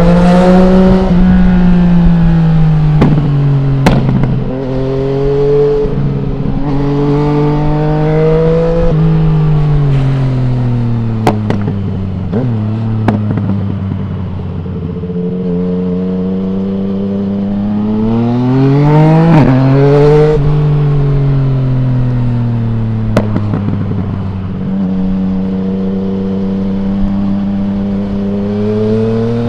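2020 Yamaha MT-09's 847 cc inline-three engine through an Akrapovic full-system exhaust with no dB killer, heard from the rider's helmet while riding: revs climb under acceleration, fall away as the throttle is eased, and climb again, with a few sharp cracks scattered through.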